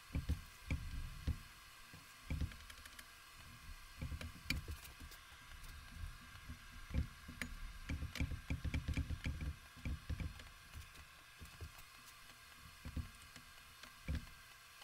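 Hand assembly of metal lathe parts: irregular clinks, taps and low knocks as tools and headstock parts are handled and fitted, with a quick cluster of clicks a little past halfway.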